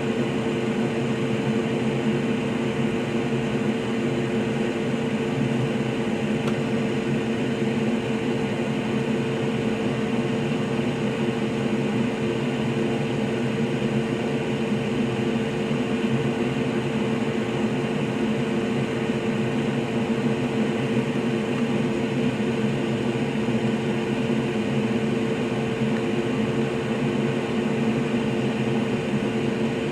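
A steady mechanical hum with a few fixed low tones over an even hiss, unchanging throughout.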